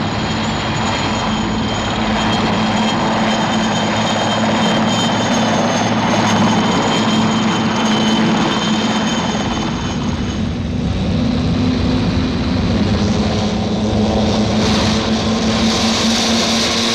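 A formation of Gazelle and Scout turbine military helicopters flying past low, their rotors and engines running with a steady high whine. About ten seconds in the whine fades and a lower, heavier rumble takes over, with tanks and armoured vehicles driving past.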